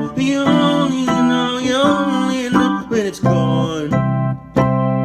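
Closing bars of a song: a voice holds and slides through a sung line over guitar and keyboard, then the singing stops and keyboard chords are struck and held a few times as the song winds down.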